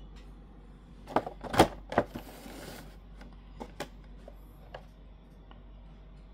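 Cardboard Funko Pop box being handled: three sharp knocks and taps a little over a second in, a short rustle, then a few lighter taps as it is gripped and lifted.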